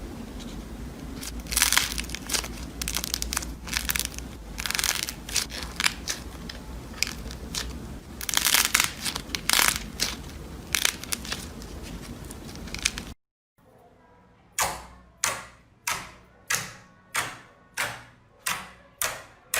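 Slime being squeezed and pressed by hand, giving irregular crunchy crackles. It cuts off suddenly about 13 seconds in, and a steady run of sharp clicks follows, about one and a half a second.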